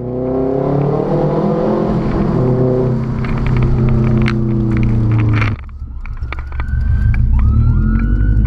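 Loud exhaust of a Subaru WRX's turbocharged flat-four running with the muffler removed. The engine note falls slowly in pitch for about five seconds, then cuts abruptly to a deeper rumble with a faint rising whistle and scattered crackles.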